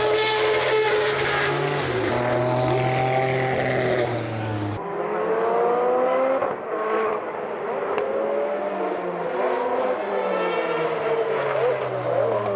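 Toyota TS010 Group C race car's 3.5-litre V10 running at high revs on track, its pitch repeatedly climbing and dropping as it accelerates and shifts gears.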